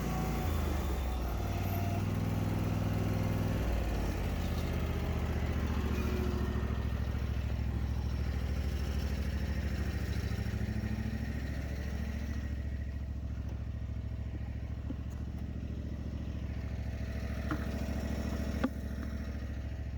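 Husqvarna lawn mower engine running at mowing speed, its pitch dipping and rising a few times as the engine load changes. A single sharp click comes near the end.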